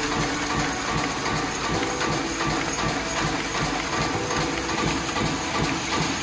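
An aerosol dome-lid production line running, with tinplate dome lids clattering rapidly and evenly as they are fed between polyurethane wheels into the spiral-grooved stacking shaft.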